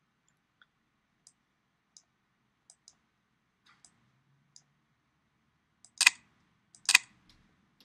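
Computer mouse clicking. Faint light clicks come every half second or so over the first few seconds, then two loud, sharp clicks about a second apart near the end.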